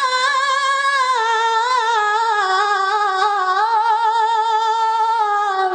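A qari's high-pitched voice reciting the Quran in the tilawah style, holding one long ornamented phrase with fine wavers in the pitch. The phrase ends with a short downward slide near the end.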